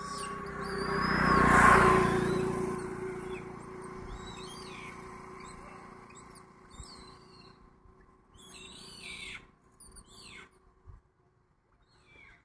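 A vehicle passes on the road, its noise swelling and fading about two seconds in, followed by birds chirping with short calls that bend up and down.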